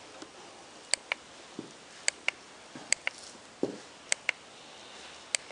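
Handheld infrared thermometer giving short, sharp high-pitched ticks as its trigger is worked, about eight of them, some in quick pairs. There are a couple of soft low thumps of handling in between.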